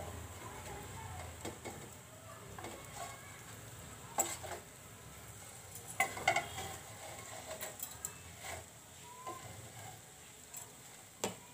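Flat metal spatula scraping and clinking on a steel plate as baked pastry rolls are turned over, a few scattered clinks over a faint steady hiss.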